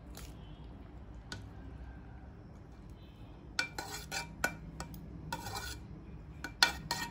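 Perforated metal skimmer scraping and clinking against an aluminium pot while spreading parboiled basmati rice into a layer: a quiet start, then a run of short scrapes and taps from about halfway, the sharpest one near the end.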